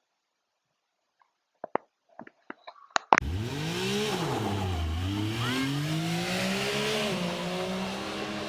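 A few sharp clicks, then an engine starts suddenly and revs, its pitch rising and falling several times.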